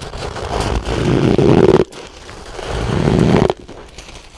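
Crunchy crushed ice and powdery frost ice bitten and chewed close to the microphone: two long crackling crunches, each building up and then cutting off abruptly, the second starting about halfway through.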